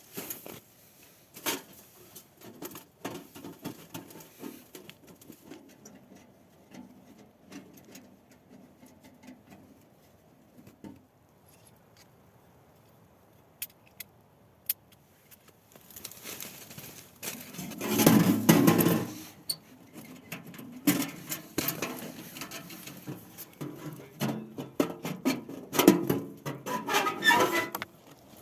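Close handling sounds: scattered clicks and light taps, then two spells of louder rustling and scraping, the loudest about two-thirds of the way through.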